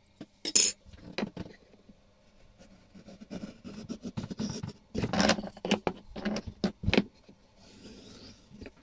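Handling noise of a steel rod and steel ruler on a beech board: a sharp metallic click near the start, then a run of clicks, knocks and rubbing scrapes as the rod is rolled back and forth under the fingers.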